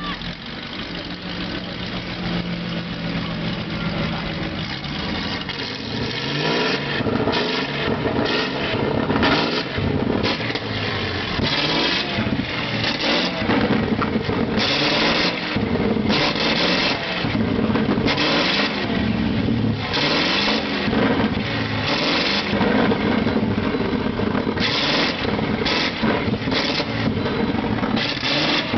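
Monster truck engine idling, then revved again and again from about six seconds in, each rev rising and falling in pitch in short loud surges.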